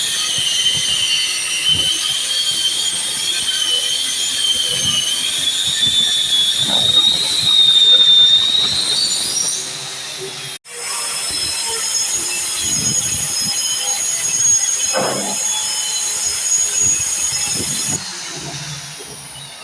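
High-pitched whine of an electric woodworking power tool running under load. The pitch wavers, then climbs just before a brief dropout about halfway through. The tool then runs steadily again before winding down near the end, its pitch falling.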